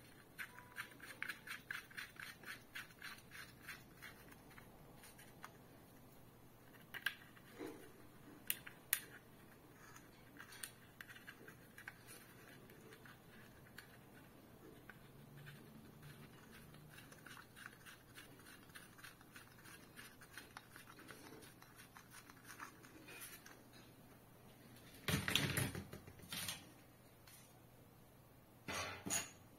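Plastic parts of an LED ceiling light being handled and fitted together: quick small clicks and scrapes as a white plastic spacer is worked into the acrylic frame, then louder clattering knocks of parts against the table near the end.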